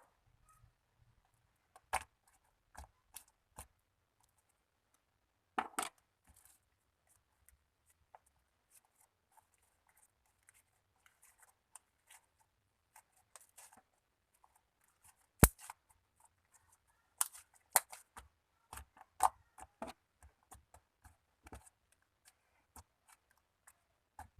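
Slime being squished and stretched by hand, giving scattered sticky clicks and pops with quiet gaps between them. One sharp, loud click comes about halfway through, and a run of clicks follows shortly after.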